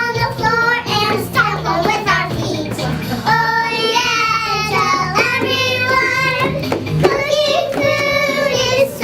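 Children singing a song over instrumental accompaniment.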